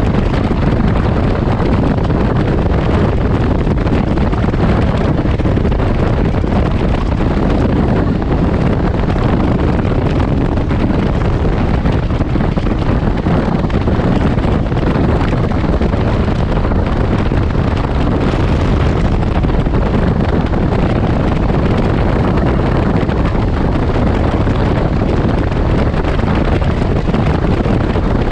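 Wind buffeting the microphone of a 2019 Can-Am Ryker Rally three-wheeler cruising at highway speed, with the machine's engine and road noise under it. Loud and steady.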